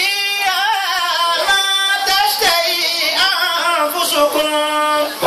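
A man's voice chanting Qur'anic recitation in long, drawn-out melodic phrases, the pitch gliding and wavering on held notes.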